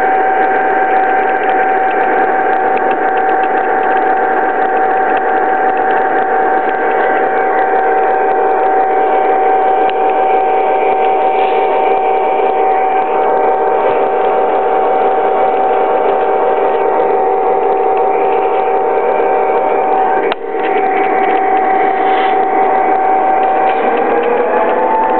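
Lionel Legacy New York Central F7 diesel locomotives running on O gauge track, a steady pitched hum from the running locomotives over a fine rattle of wheels and gears. The hum steps up in pitch near the end.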